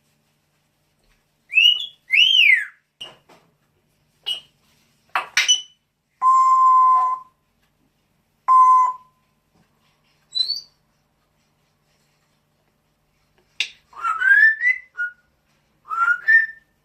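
Pet bird making a string of short whistles and calls: arching and rising whistled notes, and two steady beep-like tones about two seconds apart, with brief silences between calls.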